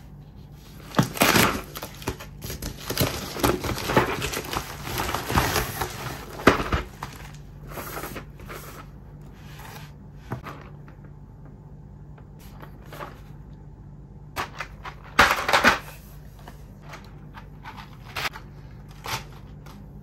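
Plastic bubble mailer crinkling and rustling as it is opened by hand, for about six seconds. Then scattered light taps and handling noises from a cardboard box and a plastic keycap tray, with a short burst of rustling about fifteen seconds in.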